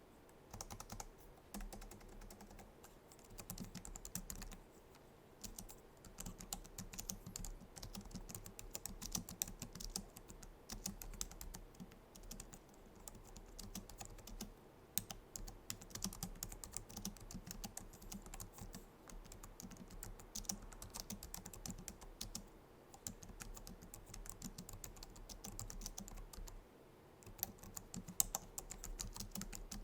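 Typing on a Logitech MX Keys keyboard, a fast run of soft, low-travel scissor-switch key clicks, with a few brief pauses.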